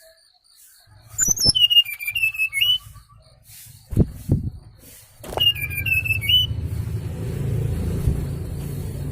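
Two short whistled phrases of the brown-chested jungle flycatcher (SRDC) lure call, quick falling and rising notes, about a second in and again about five seconds in. A low rumble and a few thumps run beneath.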